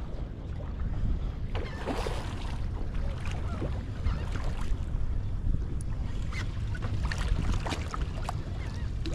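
Wind buffeting the microphone over open water, with water lapping and small splashes against a small boat's hull.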